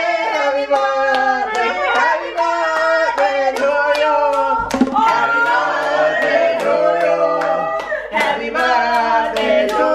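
A small group singing a birthday song together, several voices at once, with hand claps in a steady beat throughout.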